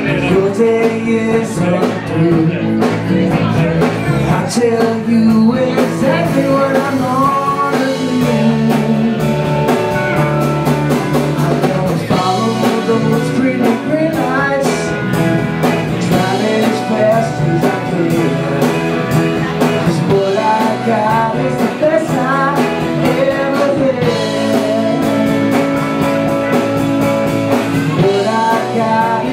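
Live band playing a blues and rock-and-roll tune, with electric guitars over drums and a steady beat.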